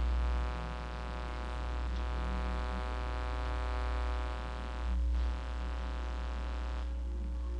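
Steady electrical hum with a buzzing comb of overtones, over a low rumble that swells briefly near the start and again about five seconds in.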